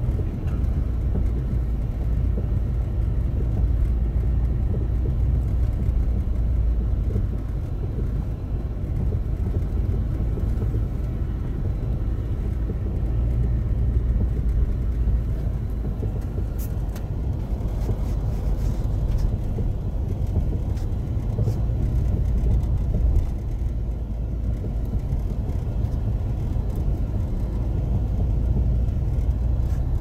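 Car driving over a rough, rutted sandy dirt track, heard from inside the cabin: a steady low rumble of engine and tyres, with a few faint clicks around the middle.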